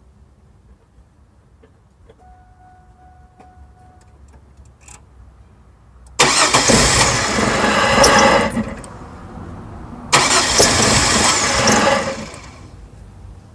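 A vehicle engine being cranked by its starter twice, each attempt lasting about two seconds, without catching: a no-start.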